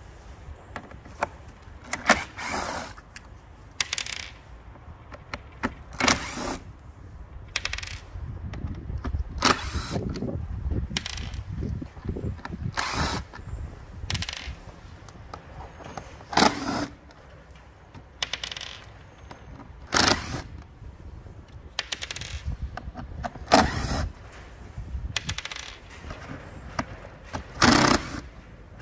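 Cordless drill-driver spinning out T20 Torx screws from the plastic back of a car door card, one after another: a short whir every second or two, with clinks and handling rattle in between.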